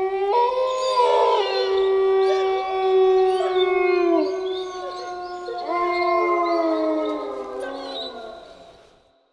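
A pack of wolves howling in chorus: several long howls overlap at different pitches, many of them sliding downward, and the chorus fades away near the end.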